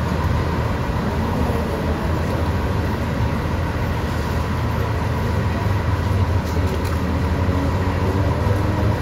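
Steady city street traffic noise with a constant low engine rumble.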